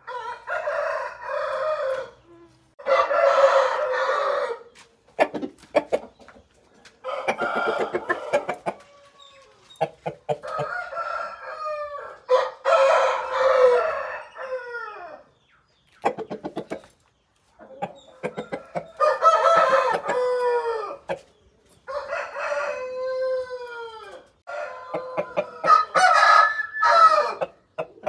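Aseel roosters crowing over and over, about eight long crows in turn, each ending in a falling tail, with a few short clicks between them.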